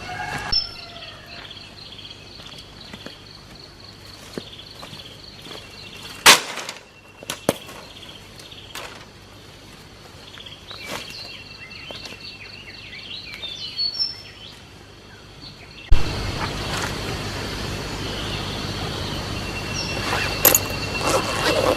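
Birds chirping over a faint steady background, with a few sharp knocks, the loudest about six seconds in. About 16 seconds in, a louder steady hiss starts abruptly and carries on under the chirps.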